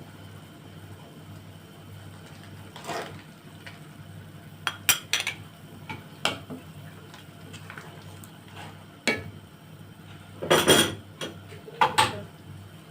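A spoon clinking and knocking against a pot in scattered, irregular taps as foam is skimmed off boiling tamarind syrup, with a cluster of louder knocks near the end, over a steady low hum.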